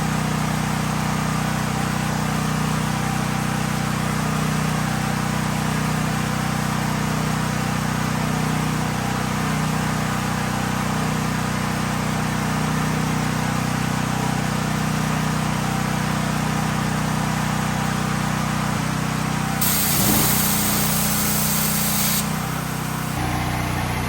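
Portable generator engine running steadily, loud in the garage. Near the end comes a loud hiss lasting about two seconds, and the engine's pitch dips briefly as it begins.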